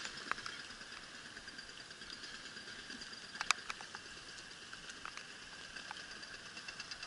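Rain pattering, with raindrops ticking irregularly on the camera over a steady hiss, and a brief louder cluster of ticks about three and a half seconds in.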